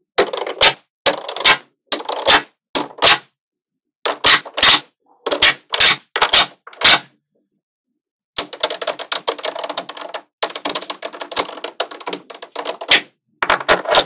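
Small magnetic balls clicking sharply as they snap onto a block of magnet balls, in quick pairs and small clusters. After a short pause about eight seconds in, a dense run of rapid clicking and rattling follows as rows of balls are pushed and shifted.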